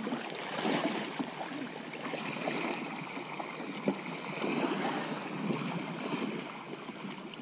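Shallow river water running and lapping, with small irregular splashes.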